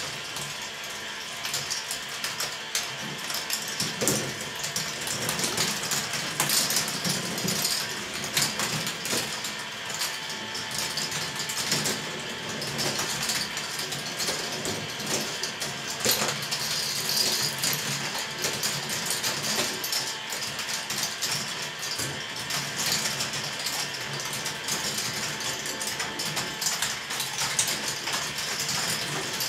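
A large K'nex ball machine running: a steady clatter of many plastic balls rolling and dropping through plastic track elements and lifts, with the whir of the lift motors underneath.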